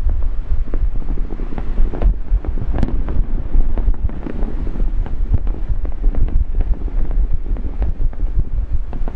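Aerial fireworks going off in quick succession, a steady run of sharp bangs and pops, under a heavy low rumble of wind buffeting the microphone.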